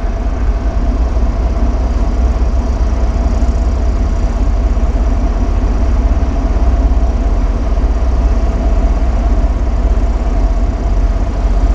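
Asphalt distributor truck's engine running steadily with its PTO engaged to drive the hydraulic pump: a deep, even drone with a constant mid-pitched whine over it.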